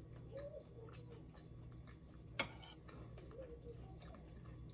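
Quiet eating: faint clicks of a metal fork against a plate of rice and soft chewing, with one sharper click about two and a half seconds in. A child's voice is faint in the background.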